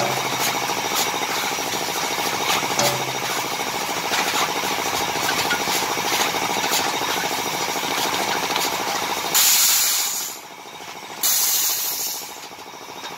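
A 2013 Komsilaj KM 100 silage baler-wrapper running with a steady rattling clatter as it wraps a round bale in stretch film. Near the end come two loud hisses of compressed air, each about a second long, as its pneumatic cylinders work.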